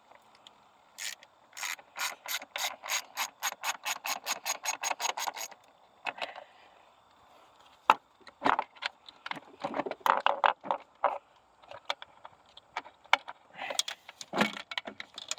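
Socket ratchet wrench clicking as it is swung back and forth, about five clicks a second for roughly four seconds, while working a bolt loose on a car engine. After that come irregular metallic knocks and clatter of tools at work, with one sharp click about eight seconds in.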